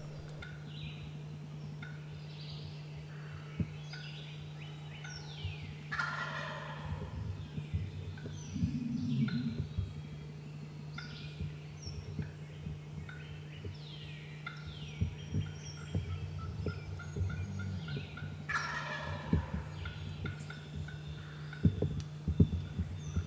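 Eastern wild turkey gobbler gobbling twice, a rapid rattling call falling in pitch, about a quarter of the way in and again about three quarters of the way in.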